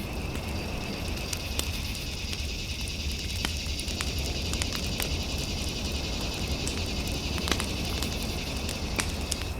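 Fireplace fire crackling, with scattered sharp pops over a steady low rumble. A steady high electronic hum sits beneath it.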